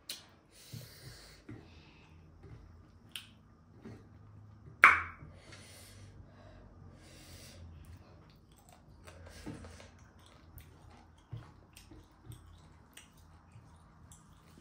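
Close-up eating sounds: chewing with wet mouth clicks and lip smacks, broken by several breaths about a second long. One sharp, much louder click about five seconds in.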